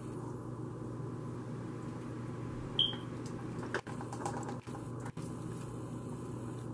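Wet cornbread dressing poured from a plastic bowl into a foil pan, giving soft scrapes and clicks over a steady low hum. A brief high squeak comes about three seconds in.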